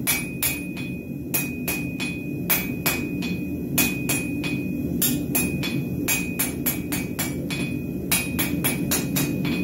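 Hand hammer striking hot steel bar on an anvil, a run of sharp clanks at about two to four blows a second, with the anvil ringing on one high tone between blows. It is drawing half-inch round bar down to 3/8 square, over a steady low rumble.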